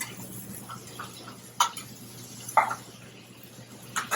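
A metal kitchen utensil clinking and tapping against a frying pan while the pan-fried fish is turned: several short, irregular clicks.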